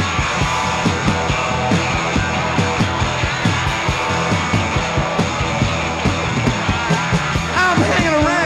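Punk rock band playing live: electric guitars, bass and a steady drum beat in an instrumental stretch, with a shouted vocal coming in near the end.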